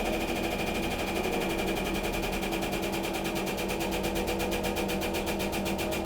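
Hydraulic press's motor and pump running steadily: a constant hum with a rapid, even pulsing that grows more distinct toward the end.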